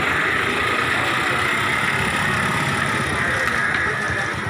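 A vehicle engine running steadily at idle, with a few faint clicks near the end.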